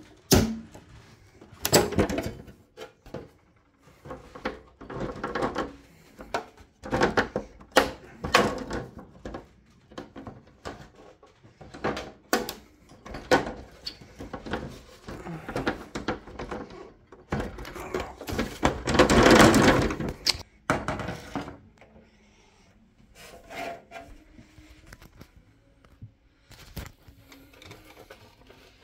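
Hands working a ceiling-mounted low-pressure sodium light fitting loose: irregular knocks, clicks and rubbing of its plastic cover and metal housing, with a longer, louder rubbing stretch about two-thirds through.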